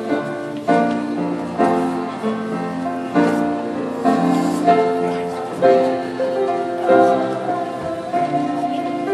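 Grand piano played live, fresh chords struck about once a second and left to ring, accompanying a group of singers.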